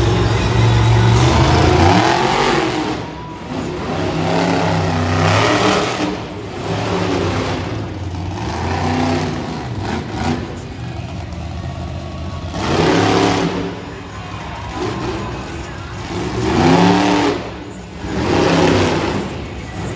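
Monster truck engine revving in repeated surges, its pitch rising and falling as the throttle opens and closes. There are louder bursts of throttle about 5, 13 and 17 seconds in.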